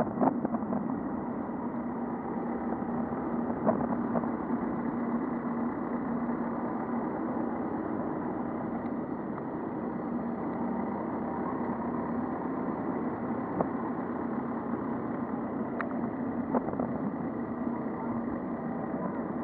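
Road traffic with a steady engine hum close by, and a few brief clicks.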